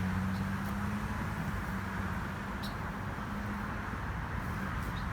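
Steady road traffic noise: a continuous even rush with a low hum underneath.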